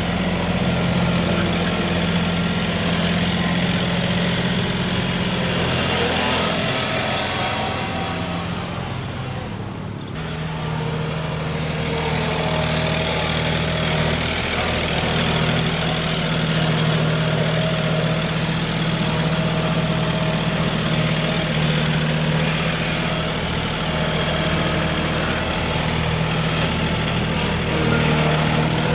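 An engine or motor running steadily at a constant pitch. It eases off briefly about ten seconds in, then picks up again.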